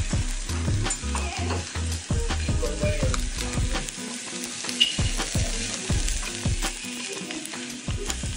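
Freshly served Korean hot-stone bowl (dolsot) of bibimbap and earthenware pot of soft-tofu stew sizzling and crackling, a steady hiss dotted with many quick pops: the food is still searing hot from the stove.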